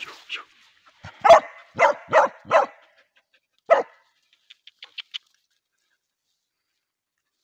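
Hunting dog barking at a snake it has found on the ground: four quick barks about a second in, then one more a second later.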